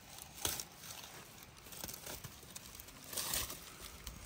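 Sweet potato vines and leaves rustling, tearing and crunching as the plants are handled, cut and pulled from the soil, in a few irregular bursts, the loudest about half a second in and around three seconds in.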